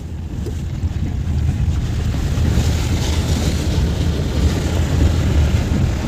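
Car wading through a shallow, rocky stream ford, heard inside the cabin: a steady low rumble of engine and tyres under the hiss of water splashing against the car. The splashing hiss grows louder about two seconds in.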